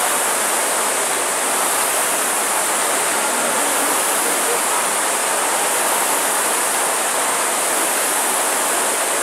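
The flywheel fans of several air-resistance rowing ergometers spinning at once under racing rowers, a steady rushing whoosh.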